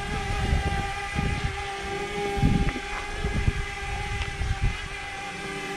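DJI Mavic Mini quadcopter hovering, its propellers giving a steady, multi-toned whine. Gusts of wind rumble on the microphone underneath.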